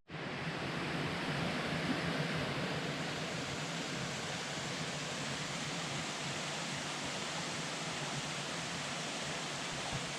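Steady rush of water falling over a small waterfall, an even unbroken noise.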